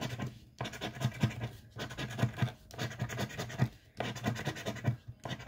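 A round coin-like scratcher rasping the coating off a scratch-off lottery ticket: rapid scratching in passes about a second long, with brief pauses between.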